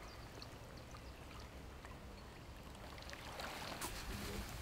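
Faint water sounds over a low wind rumble, then, from about three seconds in, rustling and crinkling as a wet landing net and carp mat are handled.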